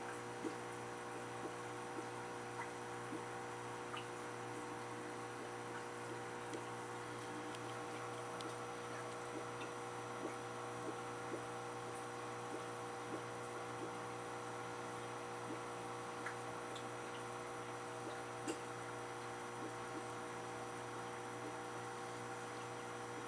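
Aquarium filter humming steadily, with small water drips or plinks about once a second.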